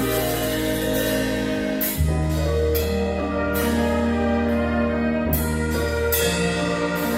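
Big band playing long held chords over a deep bass. The bass moves to a new note a few times, and a cymbal crash marks each chord change.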